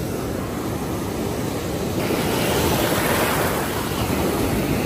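Waves breaking in the shallows and surf washing up a sandy beach: a steady rush of water that grows louder about halfway through.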